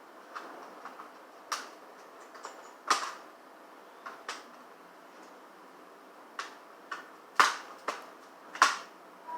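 Scattered sharp clicks and taps of small tools and metal parts being handled while a laptop's CPU heatsink and fan assembly is taken out. About a dozen irregular clicks, with two louder clacks in the last two seconds.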